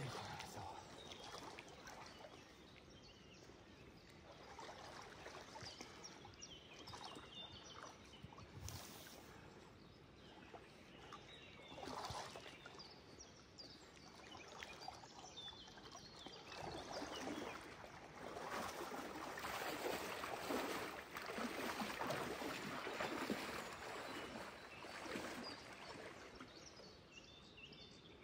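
Water sloshing and splashing as a person wades through a shallow channel in waders, louder in the second half.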